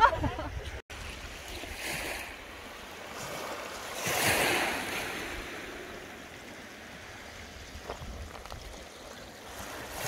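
Small waves washing onto a beach of pebbles and shell fragments, with one larger wash swelling about four seconds in.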